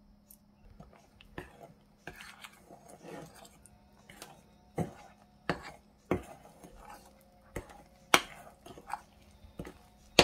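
A utensil stirring vital wheat gluten flour into wet blended tofu in a glass bowl, knocking and scraping against the glass in irregular sharp clicks, the loudest about eight seconds in.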